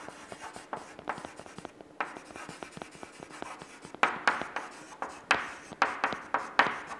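Chalk writing on a chalkboard: a string of quick taps and scrapes as letters are stroked out, busier and louder in the second half.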